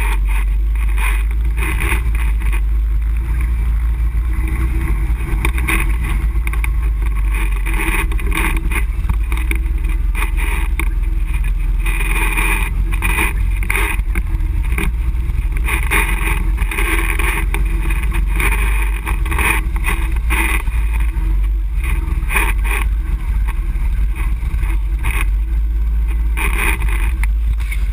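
ATV engine running steadily while riding a bumpy dirt trail, with frequent knocks and rattles from the jolting ride.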